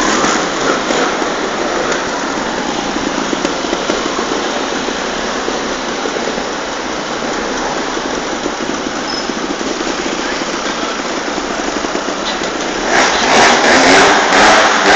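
Trial motorcycle engine running, with a louder stretch of pulsing revs starting about thirteen seconds in.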